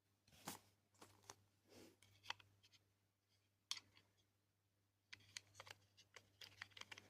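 Faint, scattered clicks and light knocks of small plastic parts being handled: a servo motor being fitted into a plastic robot casing, a few taps early and a quicker run of clicks in the last couple of seconds. A faint steady low hum sits underneath.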